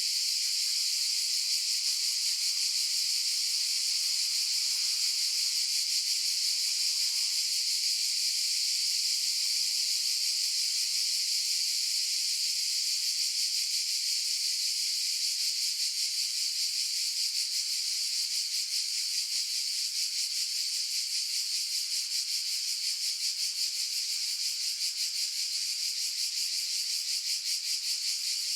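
Cicadas calling together: a steady, dense, high-pitched buzz with a fine rapid pulse, going on without a break.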